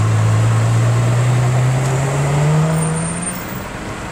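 Ferrari F12 Berlinetta's V12 engine running with a steady low drone as the car pulls away slowly. The pitch rises a little about two and a half seconds in, then the sound fades as the car moves off.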